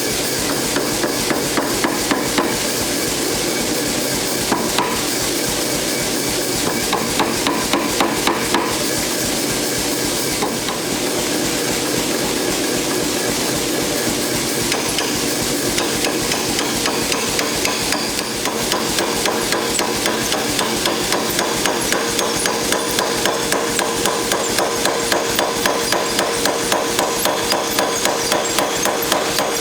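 Hammer blows on hot mild-steel flat bar at the anvil: a fast, steady run of strikes over a constant rushing background noise.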